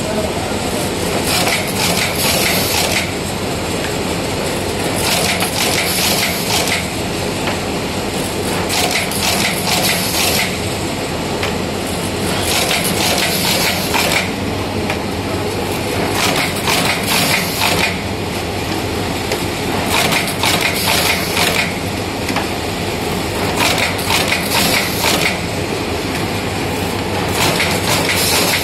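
Automatic notebook wire-stitching and folding machine running: a steady mechanical hum with a burst of clattering about every four seconds, one for each notebook stitched and folded.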